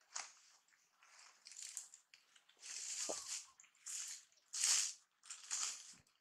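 Macaque biting and chewing a piece of fruit: a run of irregular crunching bursts, about one a second.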